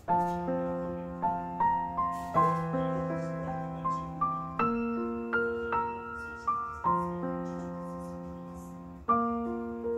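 Background piano music: a gentle melody of single struck notes over held chords, starting suddenly at the outset.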